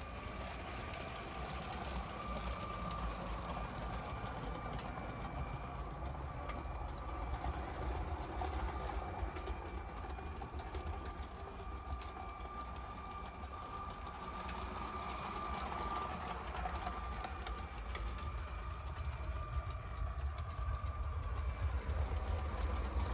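Electric motor of the 2022 LEGO City passenger train whining steadily as the train runs on its plastic track, over a continuous low rumble.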